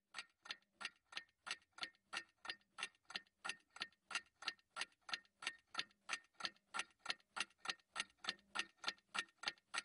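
Faint, even ticking of a clock, about three ticks a second, laid over an otherwise silent track as a time-passing sound effect.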